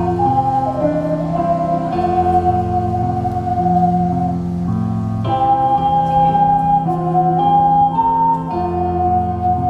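Ocarinas playing a slow melody in long held notes over a chordal accompaniment with a bass line.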